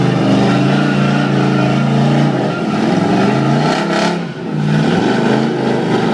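Dodge Challenger's V8 engine held at high revs, its pitch wavering, dipping briefly about four seconds in and then climbing again.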